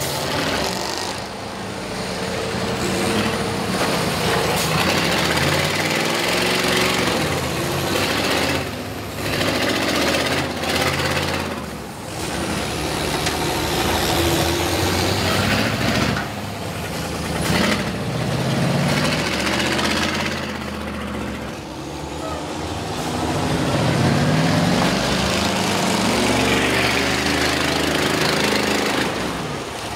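Several school bus engines revving hard and straining under load, pitch rising and falling, as the buses ram and push against each other.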